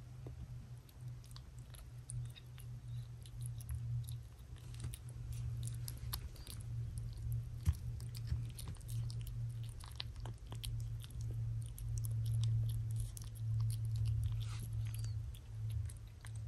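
Tortoiseshell kitten eating wet cat food from a bowl: quick, irregular wet smacking and chewing clicks. A steady low hum runs underneath.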